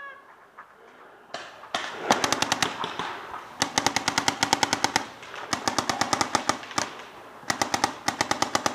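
Paintball markers firing rapid strings of shots, about ten a second, in four bursts. A couple of single cracks come a little over a second in.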